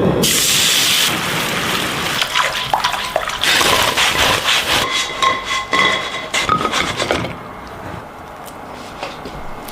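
Kitchen food-preparation sounds: a short rushing hiss at the start, then a busy run of clinks and knocks from utensils and dishes, a few of them ringing briefly. The last couple of seconds are quieter, with only a few light clicks.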